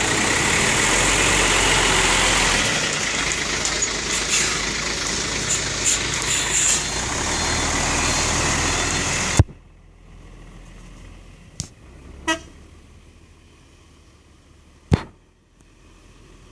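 A truck running loud at close range, with engine and road noise and faint steady horn tones from its telolet horn. The sound cuts off abruptly about nine seconds in, leaving a quieter stretch with a few sharp knocks.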